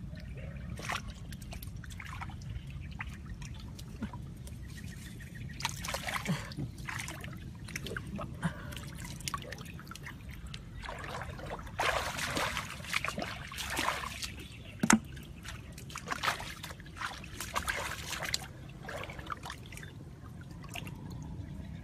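Shallow muddy water splashing and dripping as hands grope among the stakes of a bamboo fish trap and lift out a fish, in irregular bursts that are busiest in the middle, with one sharp tap about two-thirds through. A steady low rumble sits underneath.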